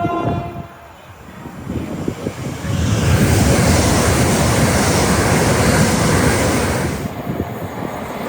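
The last note of a train horn dies away about a second in, then a train passes at speed with a loud, even rush of air and wheel noise that builds about three seconds in and eases off near the end.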